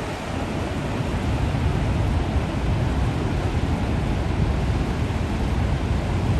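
Waterfall rushing: a steady, even wash of falling water, heaviest in the low end.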